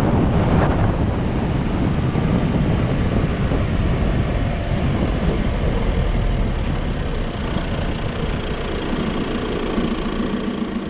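Vehicle engine running with wind and road noise while driving; it slows near the end and the engine settles into a steadier, lower hum.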